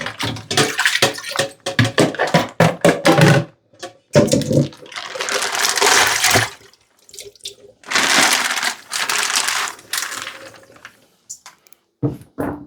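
Kitchen tap running into a sink in two spells of a couple of seconds each, after a few seconds of clattering and handling noises.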